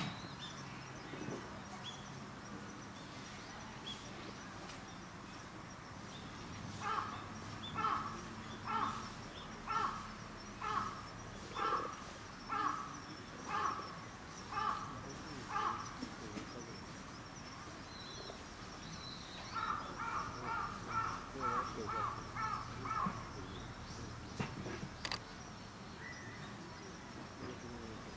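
A crow cawing in two bouts: about ten caws at roughly one a second, then after a short pause a quicker run of about eight caws.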